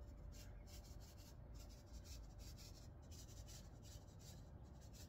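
Near silence with faint, irregular scratchy rustling as lettuce seed is shaken by hand from a paper seed packet along a row of soil, over a low rumble and a faint steady hum.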